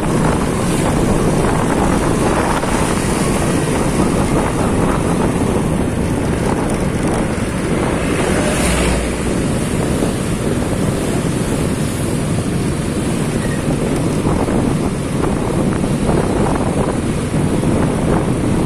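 Steady wind rumble buffeting the microphone on the move, mixed with the engine and tyre noise of motorbikes and scooters riding through street traffic. A short louder surge comes about halfway through.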